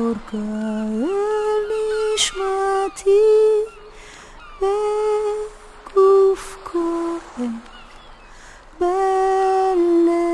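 A solo voice humming a slow wordless melody in long held notes, phrase by phrase, with short breaks between phrases.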